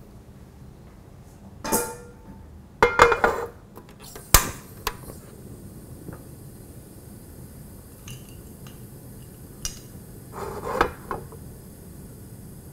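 A frying pan clanking and scraping as it is set down on a gas stove's metal grate, in a few short clatters. There is a single sharp click a few seconds in and another brief clatter near the end.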